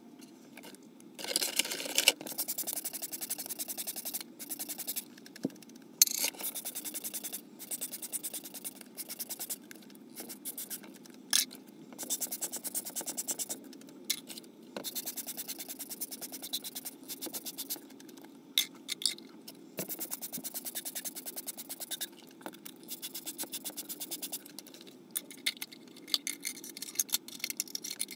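Dishes being scrubbed by hand: repeated spells of fast back-and-forth scraping, each lasting a few seconds with short pauses between, and several sharp clicks of dishes knocking together.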